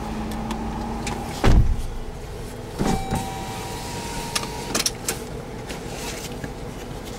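Cabin sounds of a 2011 Jeep Grand Cherokee: a low engine hum, then a heavy low thump about a second and a half in, the loudest sound. Then come clicks and a steady electric whine lasting about a second and a half, with more clicks as it stops.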